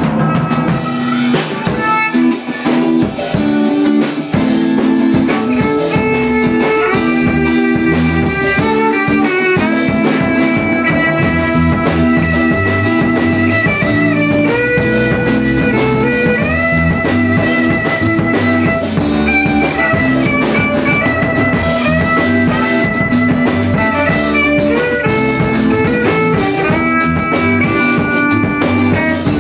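Live band jam: an electric guitar played through an amplifier over a drum kit, with a lead line whose notes slide and bend in pitch. It plays loud and without a break.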